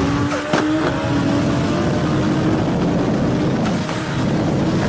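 Turbocharged race engine at wide-open throttle in a high-speed roll race against a turbo Hayabusa motorcycle. Its pitch climbs slowly, with a short break and a click about half a second in.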